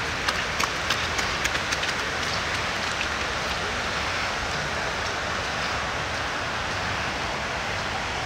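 Steady rain falling, heard as an even hiss. In the first couple of seconds a quick run of sharp taps from drops striking close by stands out over it.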